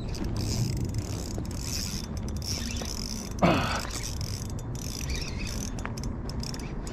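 Fishing reel being wound, a steady ratcheting whir of its gears, over a low rumble. About halfway through there is one brief, louder sound that sweeps up in pitch and falls back.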